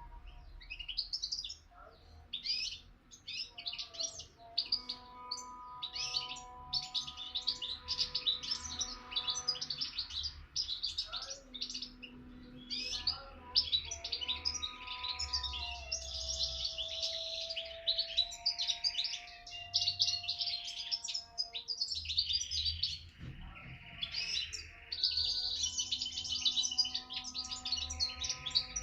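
A young songbird singing a fast, continuous twittering song of many short high notes, with brief pauses. It is an eight-month-old bird that has heard only its parents' song.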